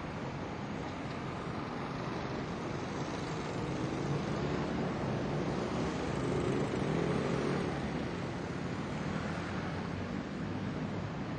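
Steady background noise with a low rumble, growing a little louder in the middle.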